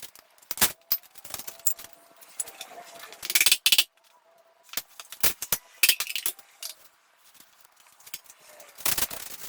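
Metal hand tools and engine parts clinking during an engine teardown: scattered sharp metallic clicks and taps, with a brief rattling run about three and a half seconds in and another cluster near the end, over a faint steady hum.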